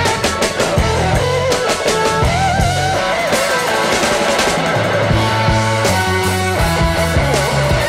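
Rock music with electric guitar over bass and drums: a wavering lead guitar line above a steady beat.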